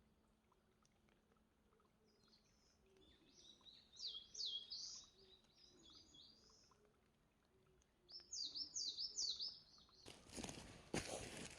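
A songbird singing two quick phrases of high, sliding whistled notes, a few seconds apart. Near the end there is a short burst of noise.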